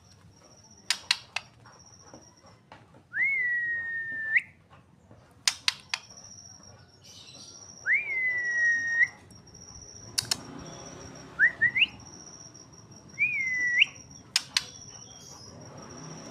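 Juvenile male white-rumped shama giving a few clear whistled notes. Each note slides up, holds level and flicks upward at the end, and sharp clicks come in between.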